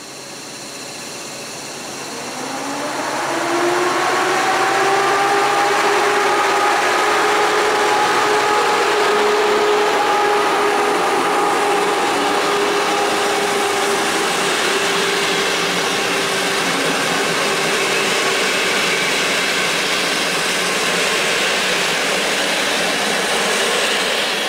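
EP07 electric locomotive and PKP Intercity coaches moving through the station: loud, steady rumble of wheels on rail with a whine that rises in pitch about two to four seconds in and then holds.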